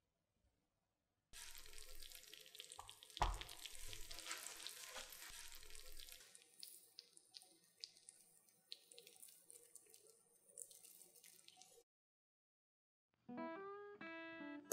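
Hot cheese-topped potato gratin sizzling and crackling with many small pops, with one loud knock about three seconds in. Acoustic guitar music starts near the end.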